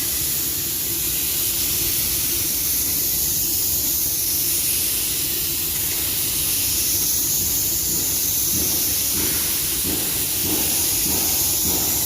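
Compressed-air paint spray gun spraying epoxy primer onto a car body panel: a steady, even hiss of air and atomised paint over a low hum.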